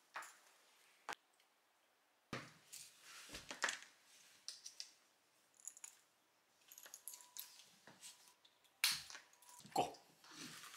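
A dog harness and leash being handled: scattered sharp clicks from the plastic buckles and rustling of the nylon straps, with a few louder snaps.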